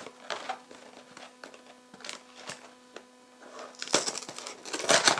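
Cardboard tea box being handled and opened: scattered light taps and rustles, then a louder scraping rustle from about four seconds in as the flap is pulled open.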